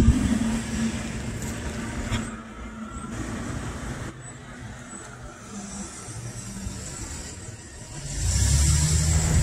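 Road vehicle engines. One runs and fades away over the first few seconds, then a heavier engine grows louder about eight seconds in as a vehicle pulls up close.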